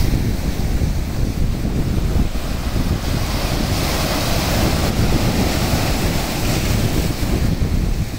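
Sea surf breaking and washing over shoreline rocks, with wind buffeting the microphone as a steady low rumble. The surf swells loudest around four seconds in as a wave breaks.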